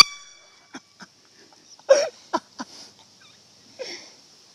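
The ring of an air horn blast dies away at the start, then breathy, stifled laughter comes in short wheezing bursts, loudest about two seconds in. A steady high insect drone runs underneath.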